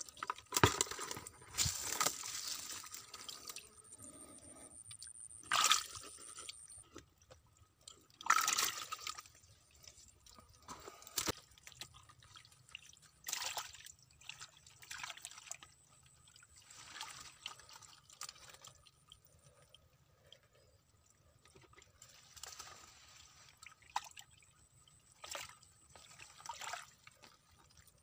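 Hands splashing and sloshing in shallow muddy water while feeling about for fish, in irregular bursts a few seconds apart, the loudest near the start and about eight seconds in.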